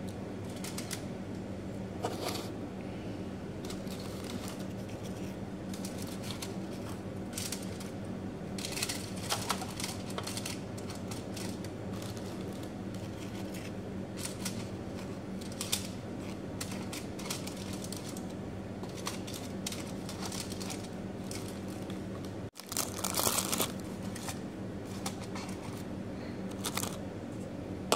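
Aluminium foil lining a tray crinkling in short scattered rustles as biscuits are laid into it and pressed down, loudest about 23 seconds in. A steady low hum runs underneath.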